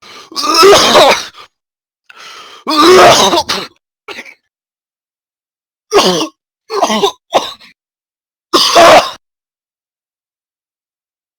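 A person coughing and clearing their throat in a run of harsh, throaty bursts: two long hacking coughs, then a string of shorter ones.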